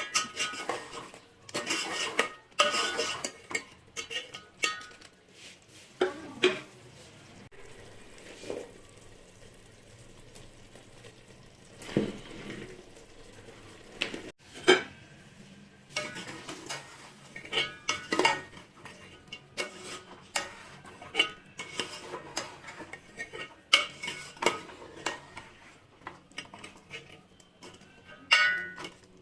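Metal spoon stirring and scraping in a cooking pot, with irregular clinks and knocks against the metal.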